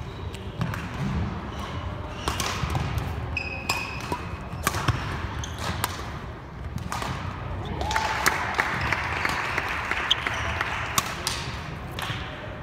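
Badminton play: repeated sharp cracks of rackets striking shuttlecocks, with short squeaks of court shoes and thudding footfalls on the wooden floor.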